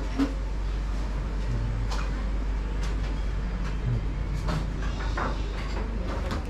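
Background noise of a busy covered market alley: a steady low hum with scattered knocks and clatter.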